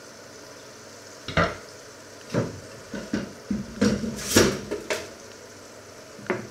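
Kitchen clatter as a wooden cutting board goes into a steel sink and a plate is set down on a glass-ceramic hob: a string of separate knocks and clinks, thickest and loudest about four seconds in.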